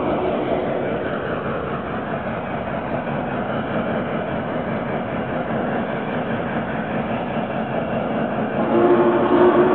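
Lionel Vision Line Big Boy O gauge model steam locomotive and tender running along the track, a steady rumbling, rushing noise. A chord of steady tones joins it near the end.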